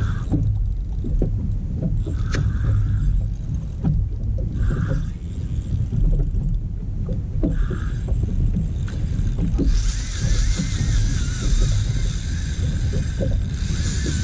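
Spinning reel's drag buzzing continuously from about ten seconds in, its pitch wavering, as a hooked fish strips line; before that the reel gives a few short buzzes. A steady low rumble lies under it throughout. The fish, which the angler guesses is a barracuda, later cuts the line.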